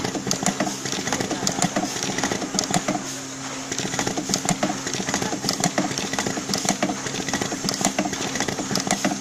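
A wire seal-inserting machine running as it threads Weather Pack terminal seals onto wire ends. It gives a steady low hum with frequent sharp clicks from its mechanism, several a second.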